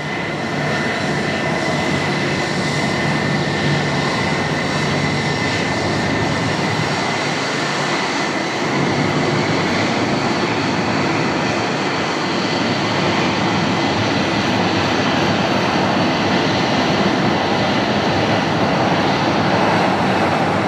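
Airbus A319 jet engines on final approach and landing: a steady, loud rush with a high whine that fades about halfway through, growing slightly louder as the airliner comes closer.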